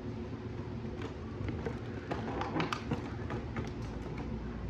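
Plastic toy gel blaster parts and clear plastic packaging being handled in a cardboard box: scattered light clicks, taps and crinkles, busiest about halfway through, over a steady low hum.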